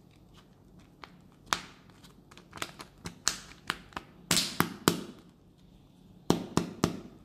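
Fingers handling a foil-wrapped plastic toy surprise egg: about a dozen sharp clicks and taps in irregular clusters, the loudest near the middle and near the end.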